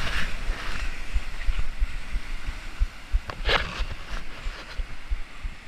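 Rough sea breaking on rocks: a steady hiss of surf with one brief louder crash about three and a half seconds in. Irregular low thumps of wind buffeting the microphone run underneath.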